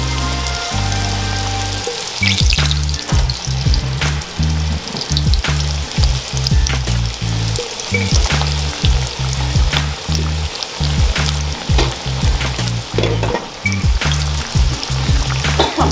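Sweet potato slices deep-frying in a pot of hot oil: a steady bubbling sizzle, with more slices added by hand partway through. Background music with a pulsing bass line plays underneath.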